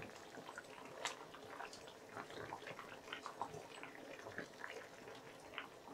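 Water boiling in a kadhai with eggplant and potato pieces: faint bubbling with scattered small pops, and a slightly louder pop about a second in.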